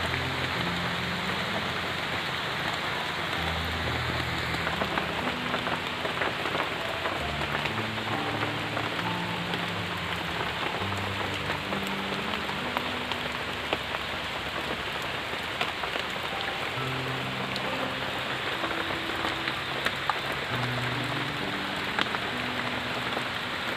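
Steady rain falling and pattering on a surface, with scattered sharper drop hits. A slow, low background melody plays underneath.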